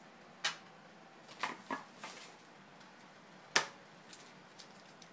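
Baseball trading cards being handled and flipped through: a few short, sharp flicks and snaps of card stock, the loudest about three and a half seconds in.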